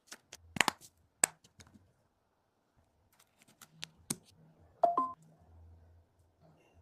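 Sharp clicks and taps of small tools handling a smartphone, a few spread out, with a short two-pitch electronic chirp about five seconds in.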